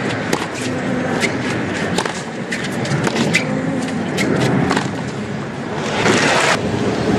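Tennis rally on a hard court: a series of sharp pops from racket strikes and ball bounces, one every half-second to a second, over a steady crowd murmur. About six seconds in a brief loud rush of noise, likely crowd applause, cuts off suddenly.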